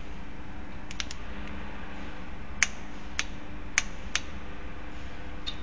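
Several sharp, light clicks and taps at irregular intervals, about six in all and the loudest about two and a half seconds in, as wooden dowels and parts are handled and fitted together. A steady low hum runs underneath.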